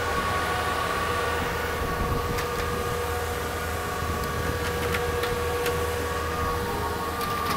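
Temperature-controlled exhaust fans and Antminer crypto-mining rigs running together: a steady drone with several held whining tones over a low hum. A few faint ticks come through midway.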